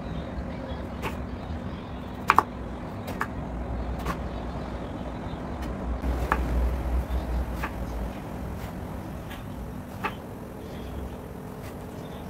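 Kitchen knife cutting through an eggplant onto an end-grain wooden cutting board: sharp knocks of the blade on the wood every second or two, the loudest a quick double knock about two seconds in. Under it, a steady low rumble that swells for a couple of seconds past the middle.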